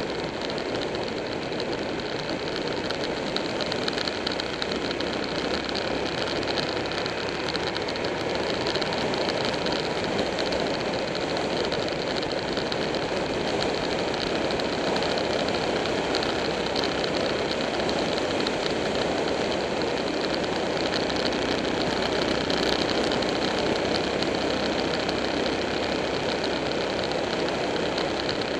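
Motorcycle riding at steady highway speed: a constant engine drone mixed with wind rushing past the camera.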